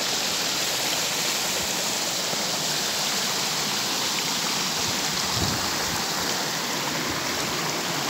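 Small clear stream rushing and splashing down a narrow rock channel in little cascades, a steady, even sound. One soft knock comes a little past halfway.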